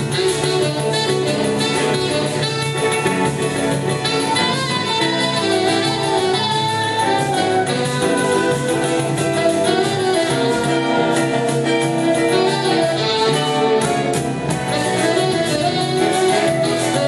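A choro ensemble playing live: saxophone melody over strummed cavaquinho, acoustic guitars and pandeiro, with flute in the group.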